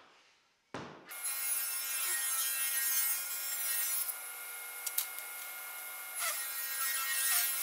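Table saw running with a steady whine, ripping narrow cherry strips: louder while wood is fed through the blade, dropping back in the middle before the next cut. It comes in about a second in.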